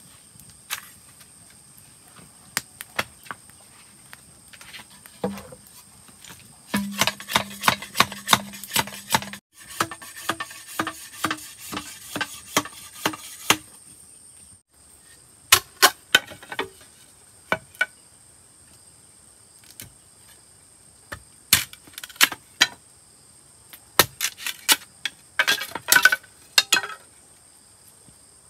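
Irregular sharp knocks and taps on wood, coming in clusters, over a steady high insect drone.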